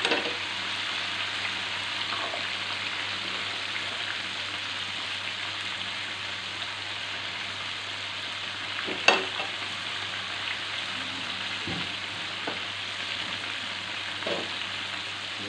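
Chicken chop pieces shallow-frying in oil in a nonstick pan: a steady sizzle. A sharp click about nine seconds in and a few faint knocks near the end.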